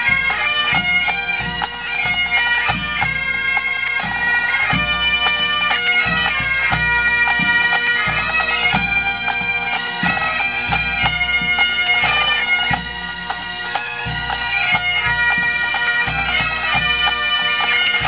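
Pipe band playing: Great Highland bagpipes sounding a tune over their steady drones, with the drum corps beating time and the bass drum thudding underneath.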